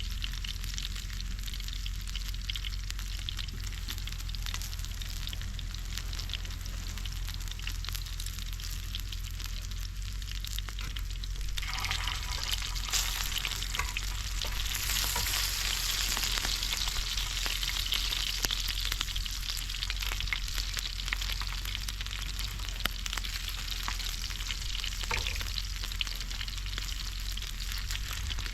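Food frying in a hot pan, a steady sizzling crackle that grows louder and brighter about twelve seconds in, then eases back.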